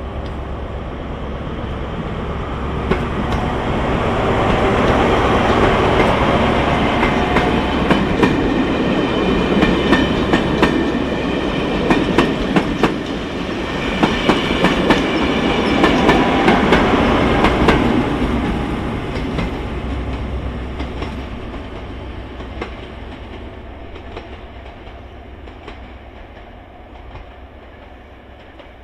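Track-inspection train powered by a Class 43 HST diesel power car passing through a station. The engine and rolling noise build as it approaches, then the wheels clack sharply over rail joints as the coaches go by. The noise fades away steadily as it recedes.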